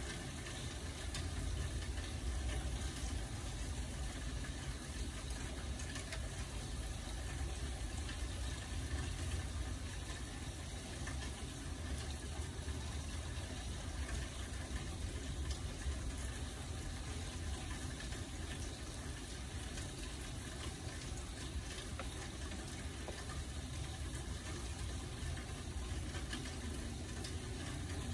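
Steady rain falling: an even, unbroken hiss with a low rumble underneath and faint scattered drop ticks.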